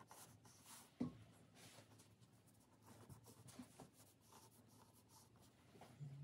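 Faint scratching of a brush-tipped pen drawing quick hatching strokes on paper, with a light tap about a second in.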